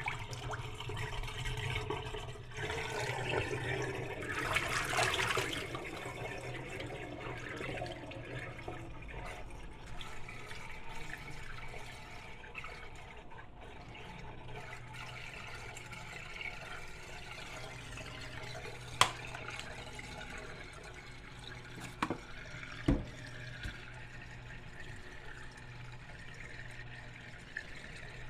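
Greasy water draining out of a stainless steel kitchen sink, swirling down the plughole in a whirlpool: a steady rushing water sound, loudest in the first several seconds. Three sharp clicks come in the second half.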